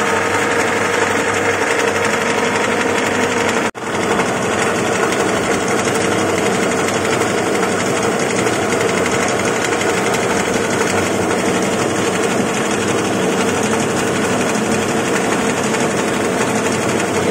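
Moringa-leaf powdering mill running steadily, a dense whirring machine noise with a steady hum, broken by a momentary dropout about four seconds in.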